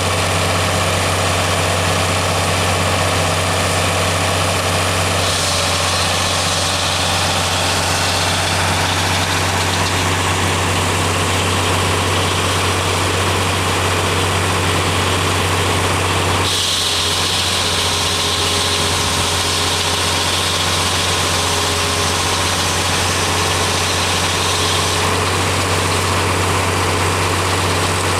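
John Deere 4020's six-cylinder engine running steadily, driving a sawmill by flat belt from its belt pulley. A higher hiss over the engine note changes level a few times, about 5, 16 and 25 seconds in.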